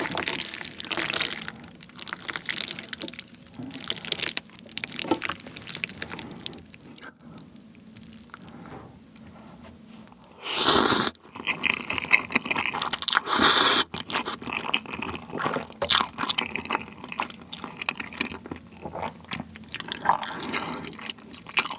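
Close-miked eating sounds: wet clicks and smacks of chopsticks working saucy spaghetti in spicy cream tteokbokki sauce, then two loud slurps of the noodles about halfway through, followed by wet chewing.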